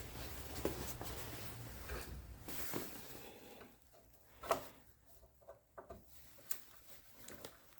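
Faint rubbing, then a few scattered light clicks, from hand work on the engine's port gaskets: an old, hardened gasket being worked loose.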